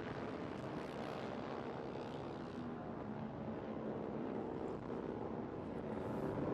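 TVS Apache RR310 race motorcycles' single-cylinder engines heard at a distance as a steady drone with faint engine tones, growing a little louder near the end.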